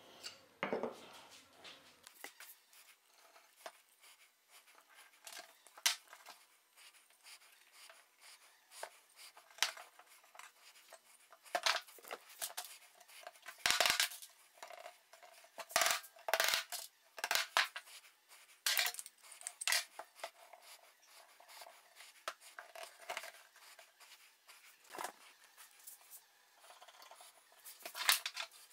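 Wooden workpieces and dowels being handled and fitted together on a workbench: irregular knocks, taps and clatters of wood on wood and on the bench top, the loudest a few seconds apart.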